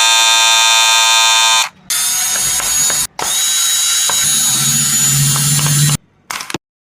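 WAHL Senior cordless hair clipper running: a steady, high buzz for under two seconds, then after a short break a harsher rattling, grinding run with scattered clicks that stops abruptly about six seconds in.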